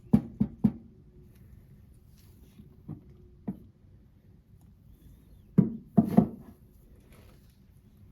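A series of short, sharp knocks and clicks of hard objects being handled and set down: three in quick succession at the start, a couple around the middle, and three more near the end.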